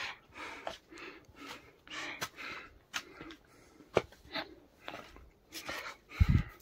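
A person breathing hard in short puffs close to the microphone, with scattered footsteps, the sound of someone out of breath from climbing on foot.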